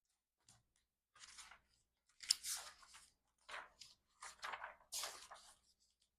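Paper rustling and crinkling in a string of irregular handling noises as pages of a large album photobook are turned and handled, the loudest about halfway through and again near the end.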